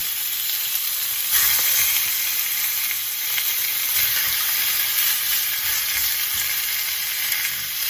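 Whole quails sizzling as they go into hot olive oil with smashed garlic in a pot: a steady frying hiss that gets louder about a second and a half in.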